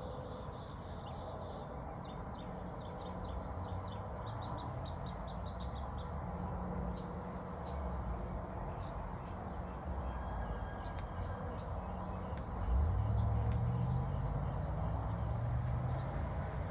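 Outdoor background of small birds chirping in short, high calls over a low rumble; the rumble swells and rises a little about twelve seconds in.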